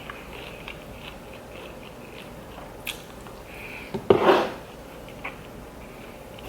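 A person chewing food close to the microphone, faint wet mouth sounds and small clicks, with one louder bite about four seconds in.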